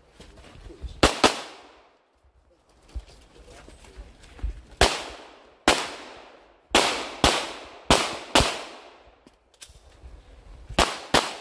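Pistol shots during a practical-shooting stage: about ten shots, several fired in quick pairs, each followed by a short echo off the wooded banks.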